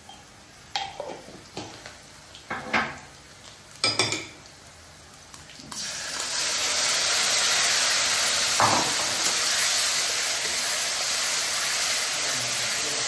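A few light knocks of a metal spoon against a bowl and pan, then, about six seconds in, a loud steady sizzle starts as a wet green paste is tipped into a hot wok. The sizzle holds while the paste is stirred with a metal spoon, with a single knock of spoon on wok partway through.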